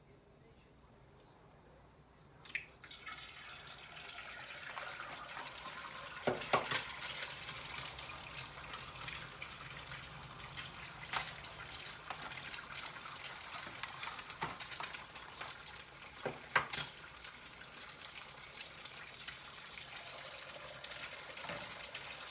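Eggs frying in a hot pan greased with avocado oil: after a couple of quiet seconds a sharp tap, then a steady sizzle that builds and holds, dotted with crackling pops.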